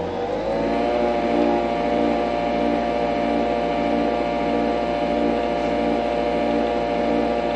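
Nespresso Vertuo coffee machine brewing a capsule: a steady whirring hum that rises slightly in pitch as it spins up in the first second, with a fast regular pulsing from the pump running through it.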